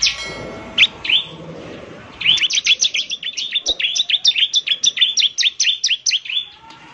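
Bar-winged prinia (ciblek) singing. It gives a few single sharp chirps, then from about two seconds in a rapid, even run of high chirps, about seven a second, lasting some four seconds.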